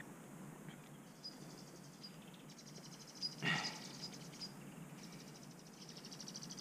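Faint insect chirping, high-pitched trains of rapid pulses that come and go twice, over low outdoor hiss. A brief rustle about three and a half seconds in is the loudest moment.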